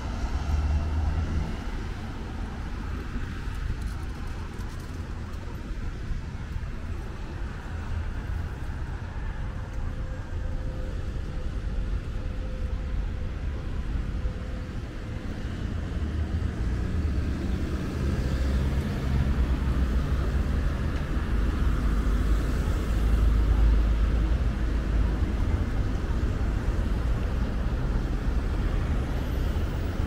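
Road traffic rumble, a steady low drone of passing cars and heavier vehicles that swells louder about twenty seconds in.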